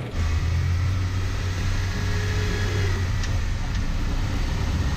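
Jeep Wrangler driving: a steady low engine drone with road and tyre noise.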